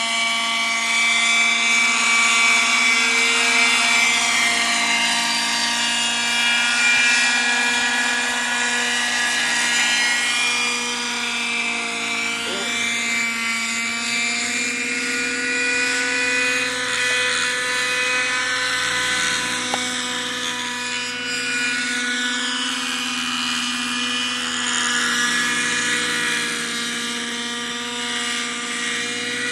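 Thunder Tiger Raptor 50 radio-controlled helicopter in forward flight, its nitro glow engine and rotor blades making a continuous high-pitched whine. The pitch drifts a little up and down, and the sound swells and fades as it flies about.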